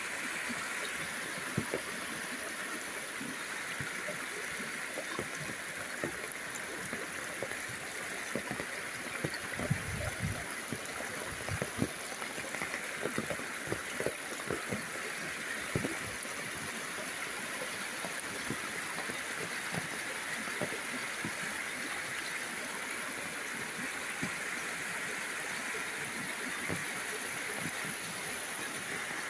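Monsoon rainwater flowing in a steady rush, with frequent small splashes and gurgles that are busiest in the middle.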